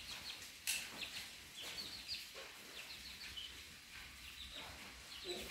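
Birds chirping faintly: many short, high chirps repeating, with one sharp click under a second in.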